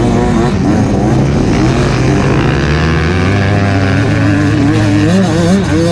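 Off-road motorcycle engine running under constantly changing throttle, its revs rising and falling over and over.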